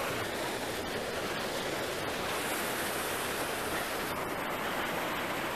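Ocean surf breaking and washing up onto the beach and rocks: a steady rush with no distinct crashes.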